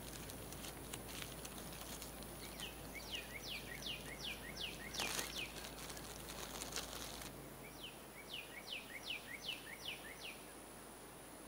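A songbird sings two runs of quick, repeated down-slurred whistled notes, seven or eight notes each, the second run starting about eight seconds in. Light clicks and a short rustle of small items being handled, with a thin steady high hum behind.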